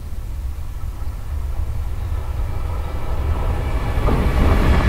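JR Freight EH500 electric locomotive hauling a container train, approaching and growing steadily louder. About three seconds in, its running noise swells with a few steady higher tones as it draws close.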